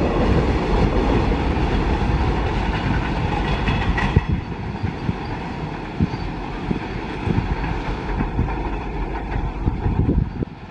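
Freight train of covered goods wagons rolling past on the rails, the wheels clattering over rail joints. About four seconds in the last wagon, the brake van, goes by and the sound drops to a quieter rumble with scattered knocks as the train rolls away.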